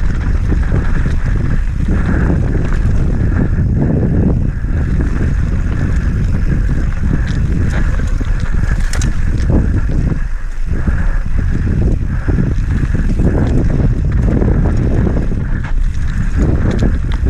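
Enduro mountain bike descending a loose, stony dirt trail: heavy wind buffeting on the microphone over the steady rumble of the tyres, with scattered rattles and knocks from the bike.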